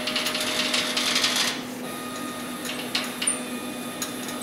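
Stepper motors of a CNC plasma table buzzing as they jog the gantry along the Y-axis, stopping about one and a half seconds in, followed by a couple of light clicks over a steady low hum.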